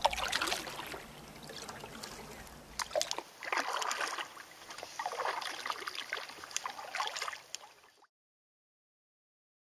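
Paddle strokes in water, coming in bursts every second or two; the sound cuts off into silence about eight seconds in.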